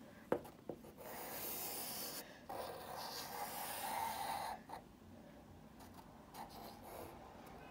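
Pencil scratching across lined notebook paper as lines are drawn. The scraping is strongest in the first half, breaks off briefly, and goes on more faintly after about four and a half seconds.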